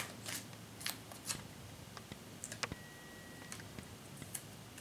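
Faint rustles and light clicks of a sheet of paper stick-on stencils being handled, with stencils peeled off and pressed onto fingernails. A brief, faint, steady high tone sounds about halfway through.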